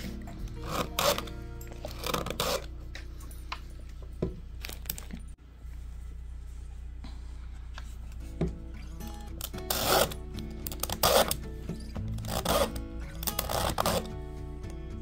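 Chainsaw file rasping across the cutting teeth of a mini chainsaw chain in short strokes, in clusters with a quieter stretch in the middle, over steady background music.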